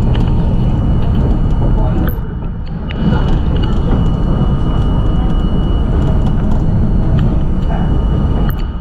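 R42 subway train running at speed on elevated track, heard from inside the front car: a loud, steady rumble of wheels on rail with scattered clicks. A steady high tone runs through the middle few seconds.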